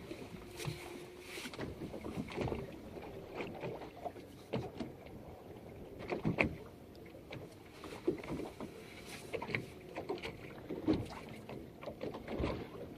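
Scattered knocks and clatter of gear and hull aboard a small fishing boat at sea, over a low steady background noise.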